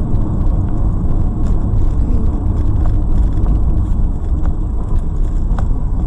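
A car driving, heard as a steady low rumble of engine and road noise, with a few faint ticks.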